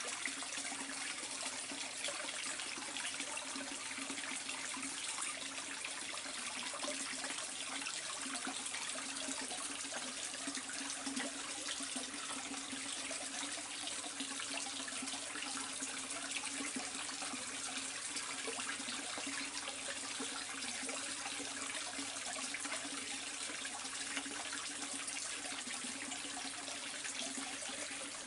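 Water running steadily into an above-ground koi pond, with a steady low hum underneath.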